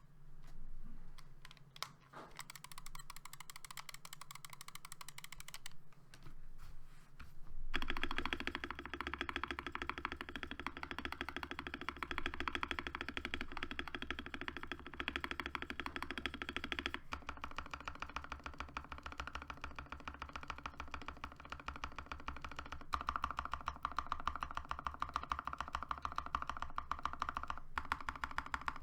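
Keychron V4 mechanical keyboard with lubed linear switches and PBT keycaps being typed on quickly: a dense, continuous run of keystrokes. The sound grows fuller and louder about eight seconds in.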